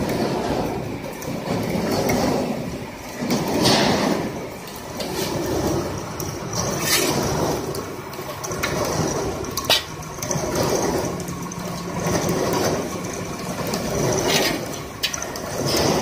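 Continuous carbonization furnace line running, a rushing machine noise that swells and fades every couple of seconds, with a few sharp clicks. Charcoal powder is pouring from its discharge outlet.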